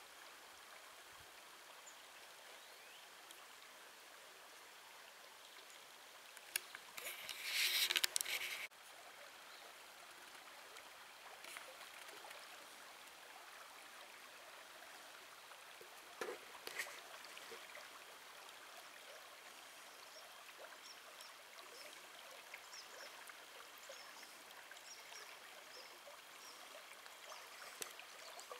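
Shallow river running over a stony bed at low water: a faint, steady rush. About seven seconds in, a louder rough noise rises for about two seconds and cuts off suddenly, and a few faint clicks follow later.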